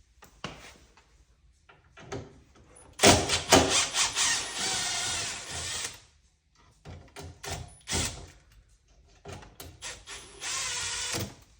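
Power drill-driver running in two spells as it backs out the dishwasher's mounting screws, the first about three seconds in and lasting a few seconds, the second shorter near the end. Clicks and knocks of handling come in between.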